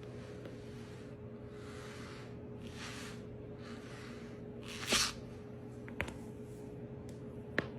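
Back rolling over a Chirp Wheel: a short loud rush of noise about five seconds in, then two sharp clicks about a second and a half apart, vertebrae popping.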